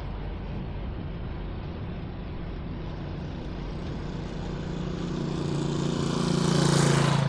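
A motor vehicle's engine drawing near over the last few seconds and passing close, loudest near the end, over a steady background of street noise.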